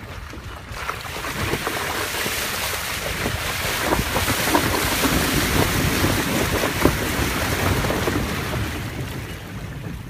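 Toyota RAV4 driving through a shallow creek crossing: water splashing and washing around the wheels and body, over a low rumble of the car. The splashing builds about a second in, is loudest through the middle, and dies away near the end as the car leaves the water.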